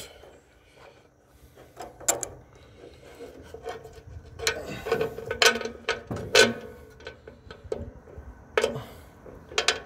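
Irregular metal clicks and clinks of a jackshaft bearing's clamshell flange halves and bolts being fitted by hand against a snowblower housing. A cluster of knocks falls in the middle, with a few more near the end.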